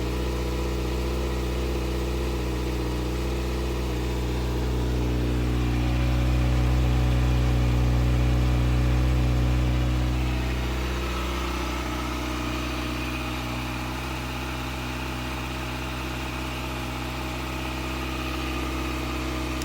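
Kawasaki Ninja ZX-6R 636 inline-four idling steadily through its stock exhaust on a cold start, a little louder for a few seconds in the middle before settling.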